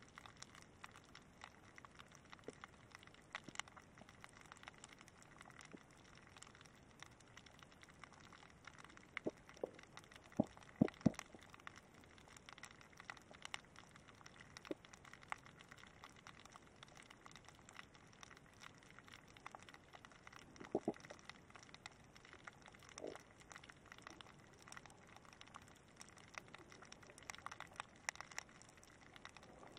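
Faint underwater crackle heard through a camera housing resting on the bottom: a steady scatter of tiny clicks and ticks. A few louder knocks come about a third of the way in, with a pair around two-thirds.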